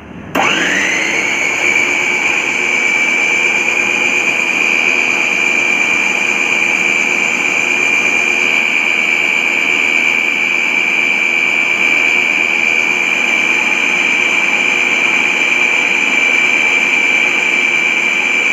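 Food processor motor switching on about half a second in, its whine rising in pitch as it spins up, then running steadily, beating egg whites and garlic while oil is drizzled in to emulsify mayonnaise.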